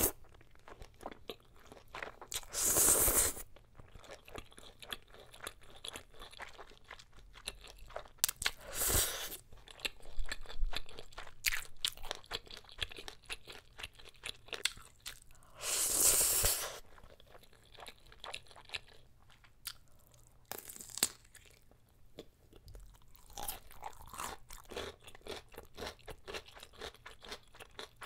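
Close-miked eating sounds of jjapaguri noodles and kielbasa sausage: wet chewing with crisp crunches and small clicks, and louder drawn-out slurps of the noodles about 3, 9 and 16 seconds in.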